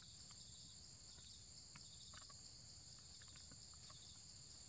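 Faint, steady high-pitched insect chorus, a continuous shrill trill, with a few faint scattered chirps.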